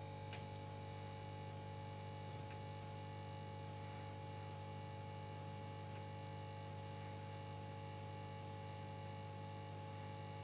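Steady electrical hum with a few faint higher tones held above it, and a couple of faint ticks.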